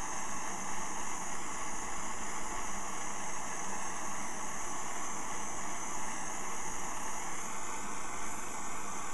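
Cooking gas torch burning with a steady hiss as its flame heats a small steel part for bluing, bringing it up through the temper colours.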